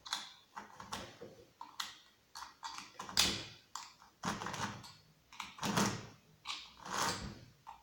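Husqvarna chainsaw chain pulled along the guide bar by hand in short repeated strokes, the links rattling and rasping over the bar, a stroke every half second to a second with a few longer, louder ones.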